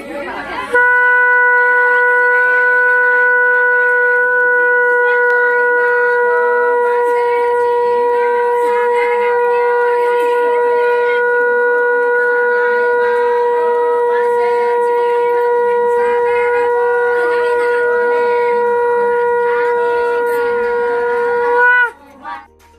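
Conch shell (shankha) blown in one long, steady, loud note for about twenty seconds, sounded as part of a Hindu haldi ritual. The pitch sags slightly as the breath runs out, and a short second blast follows.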